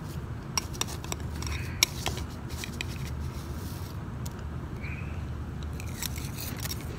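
Shaved ice being chewed and crunched in the mouth, with a run of sharp crunches in the first three seconds and more near the end.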